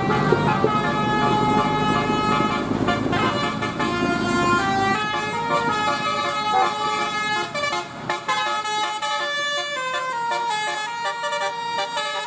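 Bus telolet horn, an electric multi-tone horn, playing a melody of held notes that step up and down. An engine rumble sits beneath it for the first five seconds or so, then falls away.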